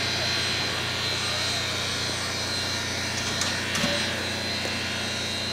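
Steam locomotive No. 464 standing at rest with steam hissing steadily. A single knock comes a little under four seconds in.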